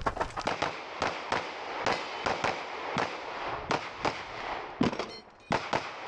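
9mm Glock 17 Gen 5 pistol firing rapid shots, mostly in quick pairs, with a brief pause about five seconds in.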